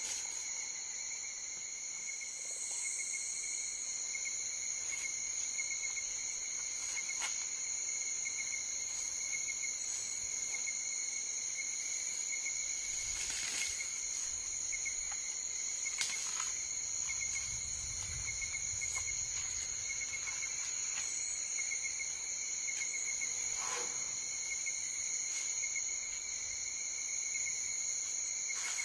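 Steady chorus of forest insects trilling at several different pitches at once, with a few faint clicks.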